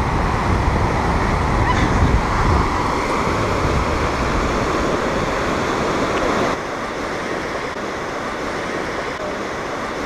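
Low sea waves breaking and washing up a sandy beach, a steady surf noise that gets a little quieter about six and a half seconds in.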